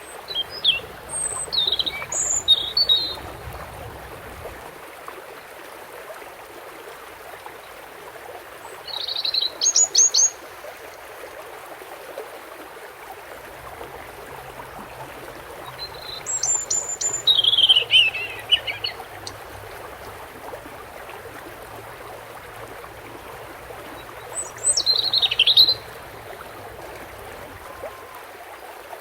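European goldfinch singing four short twittering song phrases, spaced several seconds apart, over a steady rush of running water.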